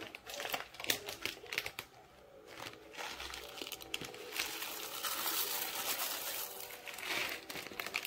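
Plastic bag of rolled oats crinkling as it is handled and tipped. It makes sharp crackles at first, then a steadier rustle as the oats are shaken out into a pot of milk.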